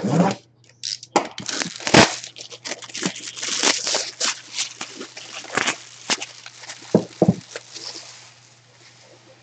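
Plastic shrink-wrap being cut and torn off a cardboard box, crinkling and crackling with many sharp snaps. There are two dull knocks about seven seconds in.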